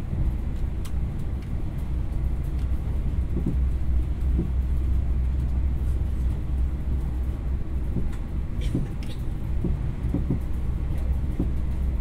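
Inside a moving passenger train: a steady low rumble from the running gear, with occasional light clicks and rattles.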